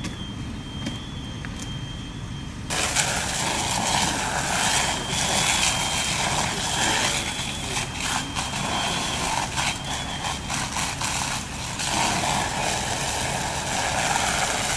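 Fire engine's diesel engine running with a steady low rumble, with scattered crackles. About three seconds in, a loud rushing hiss sets in suddenly and carries on.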